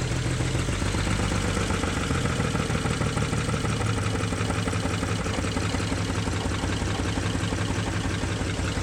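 BMW N54 twin-turbo straight-six idling steadily, with the misfire the owner is trying to diagnose.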